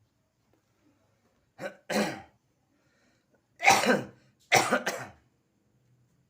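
A person coughing in short fits: a quick double cough about a second and a half in, then two louder harsh coughs close together a couple of seconds later. It is the persistent, troublesome cough that the neck and chest scraping is meant to ease.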